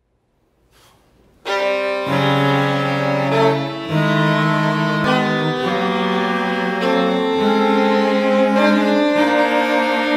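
Chamber quartet of violin, cello, clarinet and flute entering together suddenly about a second and a half in, playing loud sustained chords that shift every second or two.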